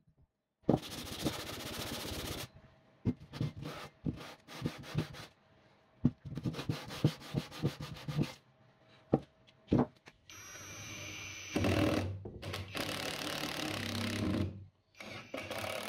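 A steel block rubbed back and forth on a sheet of abrasive paper, in rough strokes. About ten seconds in, an electric drill starts with a whine and then drills into a steel bar for a few seconds.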